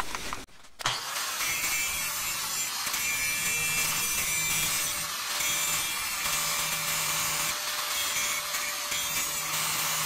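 Angle grinder with an abrasive disc grinding the steel of an antique wrench, running steadily from about a second in.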